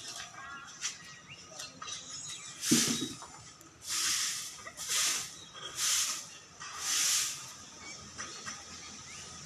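Long-bristled broom sweeping leaves across a concrete yard: four swishing strokes about a second apart, after a single thump nearly three seconds in.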